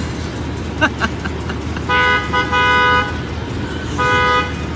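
Car horn honking three times: two honks in quick succession about two seconds in, then one more about four seconds in, over steady street noise.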